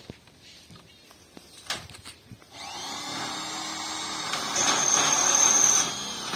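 A small motor starts up about two and a half seconds in and runs steadily with a high whine, loudest in the last second and a half or so before easing slightly.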